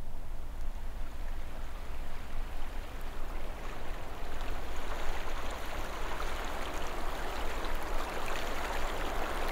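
A steady rushing noise over a low rumble. The hiss grows brighter from about two seconds in.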